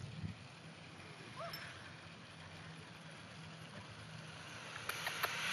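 Quiet outdoor background with a low steady hum, a brief high chirp about a second and a half in, and a few light clicks near the end.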